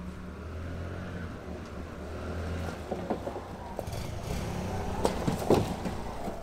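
Small motorcycle engine running at low revs while riding a deep, wet rut on a dirt track. From about halfway in, knocks and rattles come from the bike jolting over the rough ground, the sharpest one near the end.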